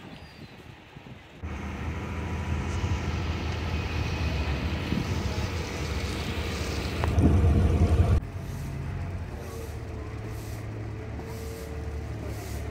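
Small harbour ferry's engine running, heard on deck as a steady low rumble. It comes in abruptly about a second and a half in, is loudest just before eight seconds, then drops sharply to a quieter steady hum.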